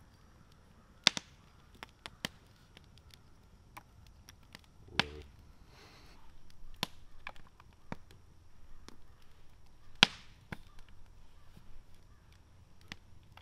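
Campfire crackling: scattered, irregular sharp pops and snaps of burning wood. The loudest comes about a second in and another near ten seconds.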